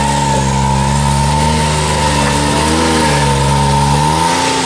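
Side-by-side UTV engine running at low, fairly steady revs, its pitch wavering gently with the throttle and dipping briefly near the end.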